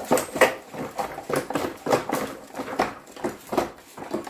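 Irregular metallic clunking and knocking, about three knocks a second, as a classic Austin Mini rear radius arm is rocked back and forth by its hub to work it out of a rusty rear subframe.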